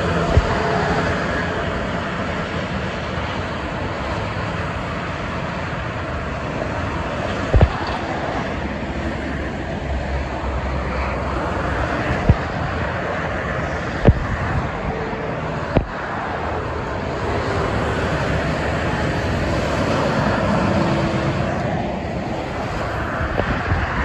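Steady expressway traffic noise from cars and heavy trucks passing below, swelling and easing as vehicles go by, with a few sharp clicks scattered through it.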